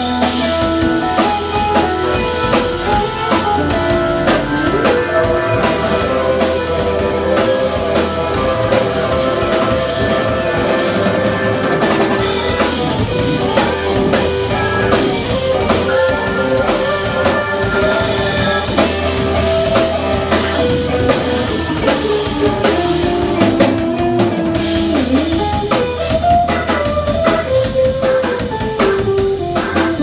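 A live instrumental band playing: organ, electric guitar, saxophone and a drum kit, with melodic lines moving over steady drumming.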